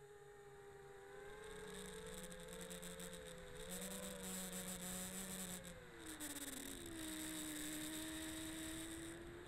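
A quadcopter's brushless motors (EMAX Eco 2306) spinning the props in flight with a steady whine. The pitch rises slightly about four seconds in, drops about six seconds in to a lower steady tone, and edges up again near the end. A rushing hiss of air thickens from about a second and a half in.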